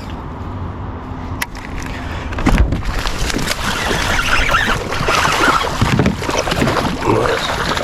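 Water splashing and sloshing around a kayak, getting louder about two and a half seconds in, over a low rumble of wind on the microphone.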